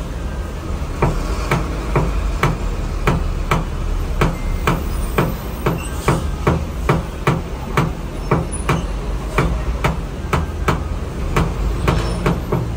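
Paintless dent repair tap-down: a knockdown punch held against a car's steel door panel is struck with a wooden stick. The light, even taps come about twice a second, starting about a second in.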